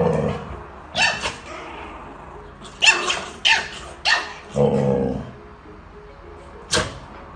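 A dog barking: a string of short sharp barks, some in quick pairs, a longer, lower drawn-out bark about five seconds in, and one last bark near the end.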